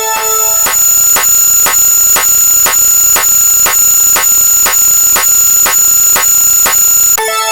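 Synthesized electronic alarm-like sound effect: a steady high-pitched tone with sharp clicks about three times a second. A short three-note electronic chord sounds in the first half-second and again near the end.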